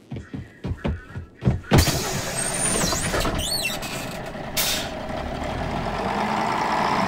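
A vehicle moving off: a run of low thumps, then a steady rumble with a few brief high squeals about three seconds in.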